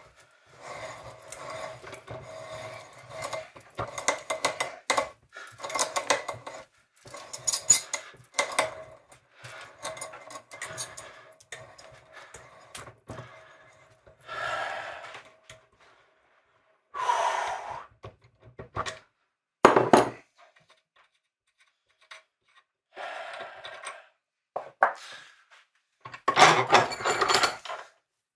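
Hand-turned T-handle tap wrench cutting threads in metal held in a bench vise: short scraping, grinding strokes, one per turn of the handle, coming thick and fast at first and then in separate bursts with pauses between them.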